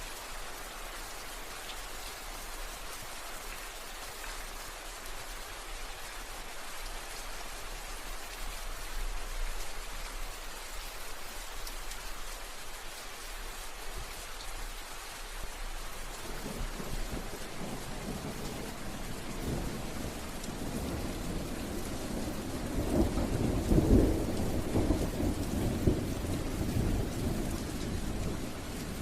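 Steady rain falling, with a rumble of thunder that builds about halfway through, is loudest near the end and then fades.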